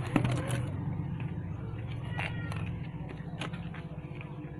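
Unpacking a first aid kit by hand: plastic wrapping, a foam packing sheet and a cardboard box being handled, giving a string of short crinkles, clicks and taps, the loudest just after the start. A steady low hum runs underneath.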